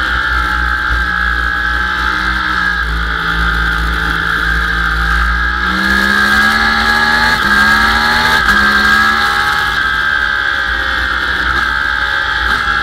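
Sportbike engine under way on a racetrack, heard from a camera on the bike, with heavy wind rush. The engine note sinks as the bike slows for a bend, then rises hard after about six seconds through two quick upshifts, each a sudden drop in pitch, and carries on pulling.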